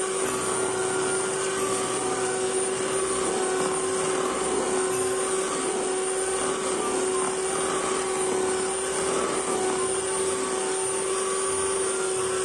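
Electric hand mixer running steadily, its twin wire beaters whipping cream in a plastic bowl, with a steady motor whine. The cream is being beaten to stiff peaks.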